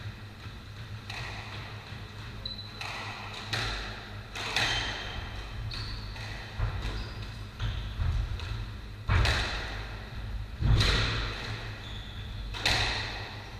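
Squash rally: several sharp cracks of the ball struck by rackets and hitting the court walls, every one and a half to two seconds, each echoing in the enclosed court. Between shots there are short high squeaks of shoes on the wooden floor.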